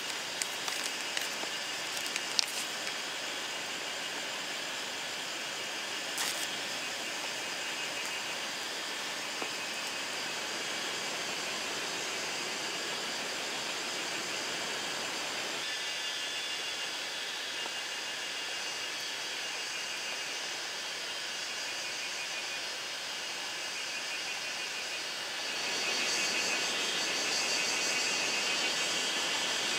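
Heavy rain falling steadily, a continuous hiss with a few sharp clicks in the first few seconds. Near the end it grows louder and hissier.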